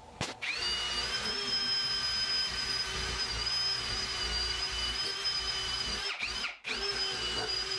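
Handheld rotary tool with a wire-wheel brush spinning up and running at a steady high whine while it scrubs surface rust off a coil valve spring. It stops briefly about six seconds in and spins up again.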